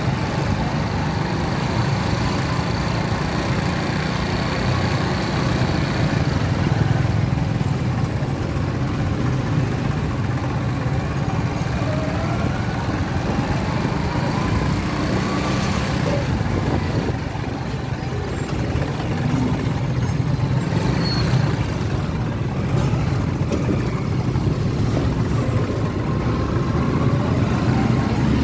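Busy city street traffic at low speed: motorcycle and auto-rickshaw engines running with a steady low rumble.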